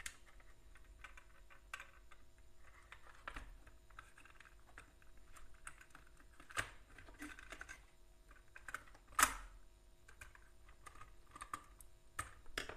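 Scattered small clicks and taps of hands working a red wire onto the terminals of a plastic electrical switch board, with the sharpest click about nine seconds in.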